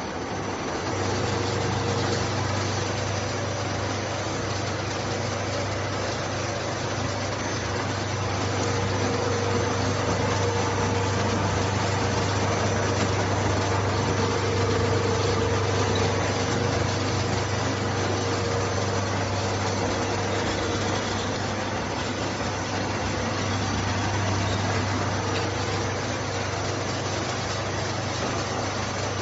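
Slitting-rewinding machine running: a steady motor hum with a low drone and a fainter higher tone over an even whir of rollers and moving web. It comes up to speed about a second in, then runs evenly.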